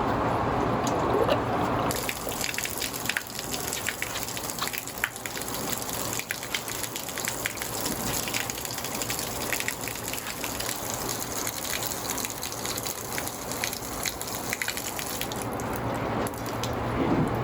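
Water from a garden hose gushing through a water filter tank during its initial rinse, with a steady rush and spattering that brightens about two seconds in, as the tank fills to overflow out of its bypass valve.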